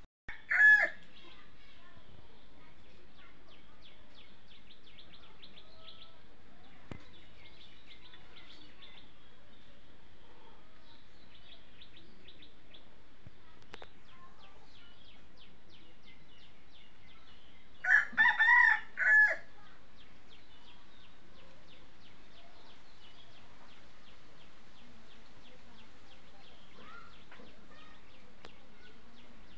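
A domestic rooster crows once a little past halfway, a cock-a-doodle-doo in several quick parts, and a short loud call comes right at the start. Faint high-pitched chirping and ticking goes on underneath.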